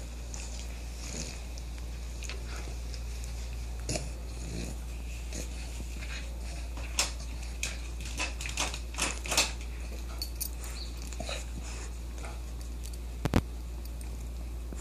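Dog chewing and mouthing a plush toy while rolling about, with snuffling and a run of short sharp clicks and snaps, the loudest a quick pair near the end.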